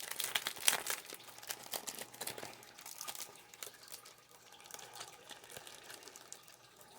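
Crinkling of a sticker pack's packaging being handled, a run of small crackles that is busiest in the first few seconds and thins out toward the end.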